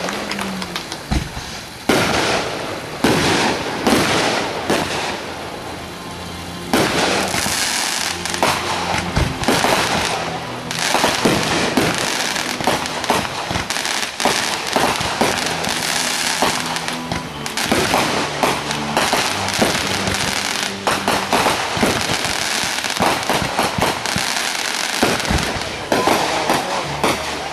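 Fireworks going off in quick succession: many sharp bangs over continuous crackling, with louder volleys starting about two seconds in and again about seven seconds in.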